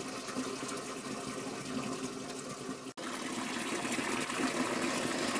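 Iron-rich mineral spring water running steadily from a pipe into a metal trough, a continuous splashing. A brief break comes about three seconds in, and after it the running water is louder and closer.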